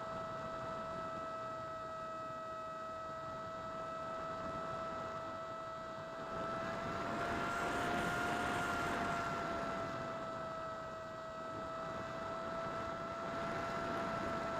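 Electric motor and propeller of a foam flying wing heard through the onboard keychain camera: a steady whine that rises a little in pitch about halfway through, together with a swell of wind rush lasting a few seconds.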